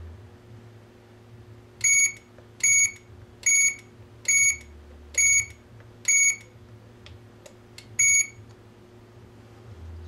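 GSM alarm control panel beeping as its keypad buttons are pressed: seven short, high beeps roughly a second apart, the last after a longer pause, with a few faint clicks just before it.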